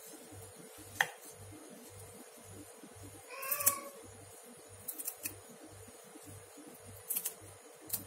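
A cat meows once, a short rising-and-falling call about halfway through. A few sharp snaps and clicks come from curly parsley sprigs being pinched off their stems by hand.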